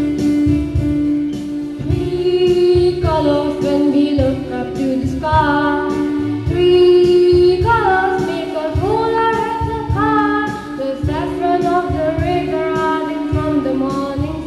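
A child singing a song in English into a microphone over a backing track with a steady beat and held chords; the voice comes in about three seconds in, after a short instrumental stretch.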